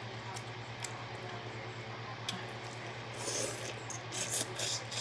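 Close-up wet chewing and mouth sounds from eating seafood, with a few small clicks and, in the second half, short squishy bursts. A steady low hum runs underneath.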